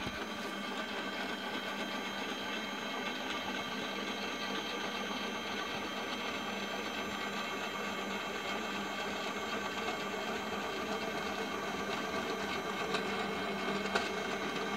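Stepper motors of a homemade CNC machine running, driving the 3D-printed carriage along its threaded rod: a steady whine of several held tones over an even mechanical rattle, with a couple of light clicks near the end.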